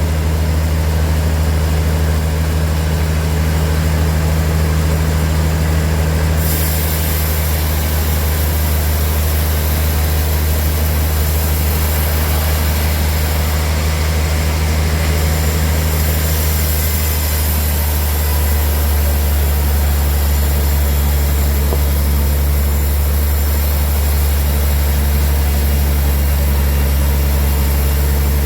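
Sawmill machinery running steadily with a deep, even hum, and a high hiss that grows stronger about six seconds in.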